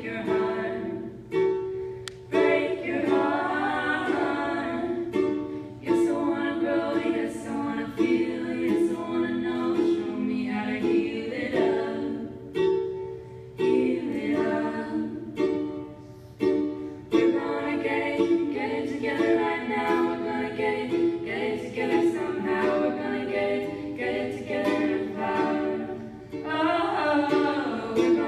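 Three female voices singing a song in harmony, accompanied by a strummed ukulele.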